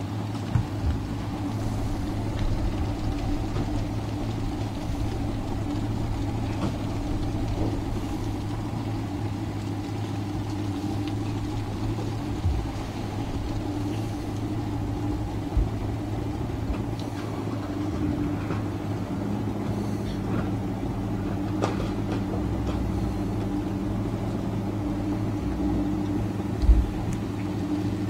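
Boat engine running steadily at slow, idle speed, a constant low hum; a second steady hum joins about two-thirds of the way in, with a few faint knocks.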